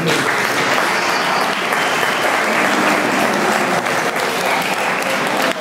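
Audience applauding, a steady clatter of many people clapping that starts at once as the talk ends.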